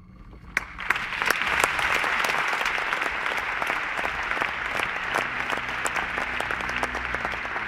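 Audience applauding, breaking out about half a second in and then holding steady.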